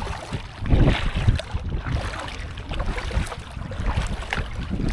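Legs wading through shallow seawater, sloshing in uneven surges about a second apart, with wind buffeting the microphone.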